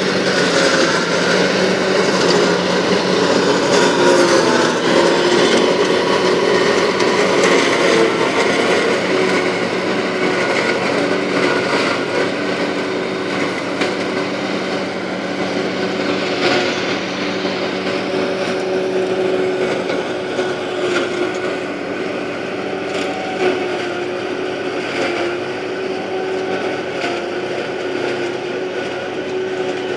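Tractor driving a trailed forage harvester through standing corn, a steady loud mechanical drone of engine and spinning chopper as it cuts the crop for silage.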